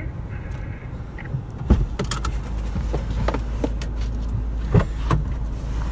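A few sharp clicks, knocks and rustles from someone getting out of a car through its open door, over a steady low rumble from the idling engine.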